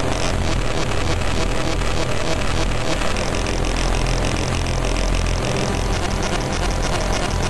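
Harsh electronic noise music (power electronics) from a SunVox modular synth patch: a dense distorted wall of noise over a steady low drone. A fast, pulsing high buzz drops out just after the start and returns about three seconds in.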